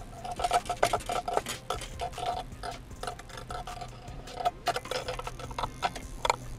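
Fishing reel being cranked: a quick, irregular run of ticks and clicks with a faint whine that comes and goes.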